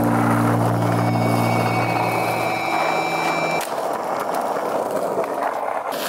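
Skateboard wheels rolling over a concrete path, a steady rough rumble. A sustained low tone lies under it and stops abruptly about three and a half seconds in.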